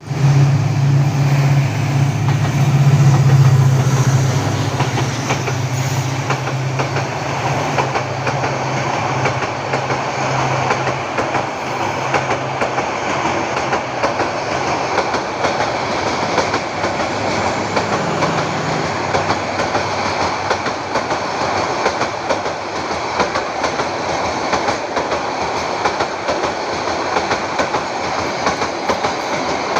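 A Bangladesh Railway train running on the rails, a steady loud rumble and rattle. A low hum is strongest in the first few seconds and fades out about twelve seconds in.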